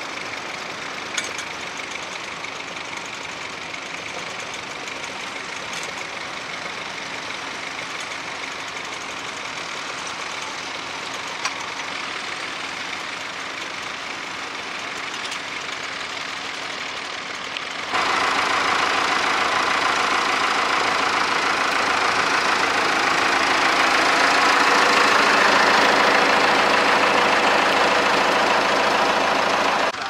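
Little grey Ferguson tractor's engine running steadily as it pulls a mounted three-furrow plough, with a couple of faint clicks. About eighteen seconds in the sound cuts suddenly to a louder, closer tractor engine running steadily, swelling a little near the end.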